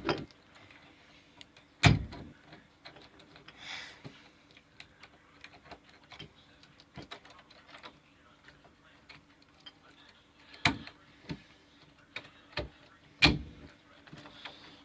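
Scattered light metallic clicks and a few sharp knocks as door-knob hardware is handled and fitted into a door.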